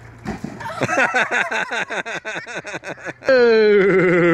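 A person's voice in a quick run of short, repeated pitched bursts, about eight a second. Near the end comes a loud, drawn-out "whoa" that falls slowly in pitch.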